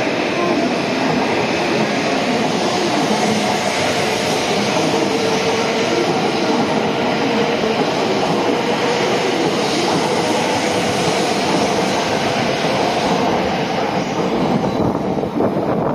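E7-series Shinkansen train rolling slowly along a station platform: a steady rumble of wheels on rail with a constant hum.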